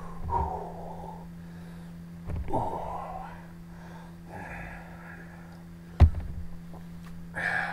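A man breathing hard through his mouth in four heavy, rasping breaths, his reaction to the burn of an extremely hot chili sauce that has left his tongue on fire. A single sharp knock about six seconds in.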